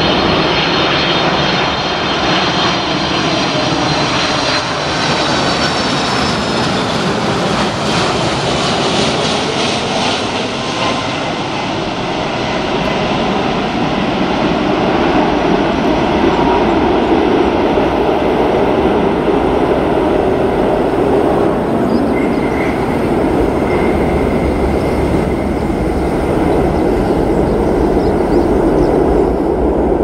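Boeing 747 freighter's four jet engines on a landing: a loud roar with a high, slightly falling whine from the engines in the first several seconds as it passes low on approach, giving way to a deep rumble that builds in the second half as it touches down and rolls out.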